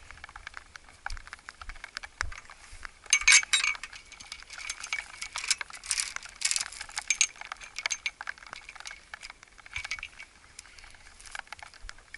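Chain-link gate and its metal latch rattling and clinking as the gate is handled and latched, with a loud burst of jangling about three seconds in and more clinking a few seconds later.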